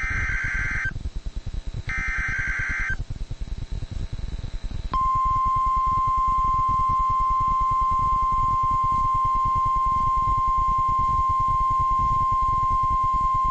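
NOAA Weather Radio Emergency Alert System tones: the last two of three one-second bursts of screechy SAME digital header data, then, about five seconds in, the long steady 1050 Hz weather-radio warning alarm tone that signals an alert message is coming. Radio static runs underneath.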